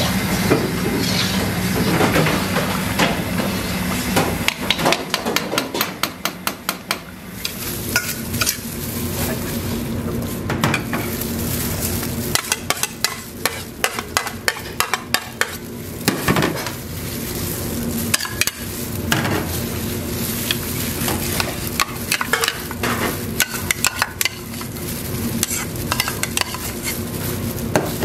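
Food-preparation sounds: a ladle stirring a thick curry-like sauce with vegetables in a large pot, then a metal spoon scooping and clinking against a stainless steel mixing bowl while corn, macaroni and crab-stick salad is mixed. Runs of quick light clicks come several times: about four seconds in, and again in the middle and later on.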